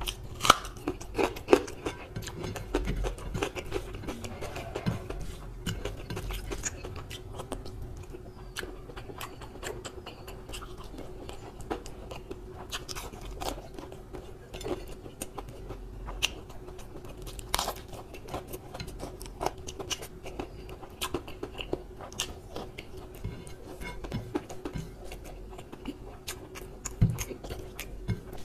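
Close-miked eating by hand: chewing, mouth smacks and bites, with many short sharp clicks and occasional crunches of fried pakora and wet sounds of fingers in curry and rice, over a faint steady hum.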